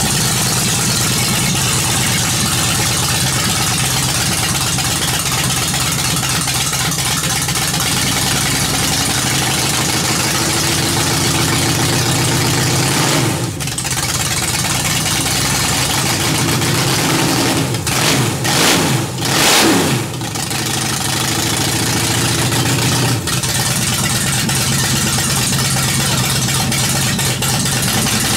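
Ford 302 V8 running on open headers just after starting, idling, then blipped by hand at the carburetor throttle: a brief rev past the middle and a couple of quick revs about two thirds in.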